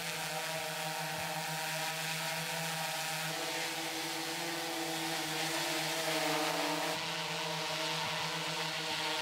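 Hydrogen fuel-cell quadcopter hovering, its four rotors giving a steady motor hum with a hiss of air from the propellers. The pitch shifts slightly a couple of times.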